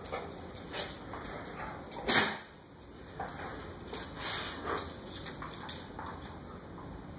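Pit bulls face to face, with a dog making a string of short vocal noises and one much louder, sharp sound about two seconds in.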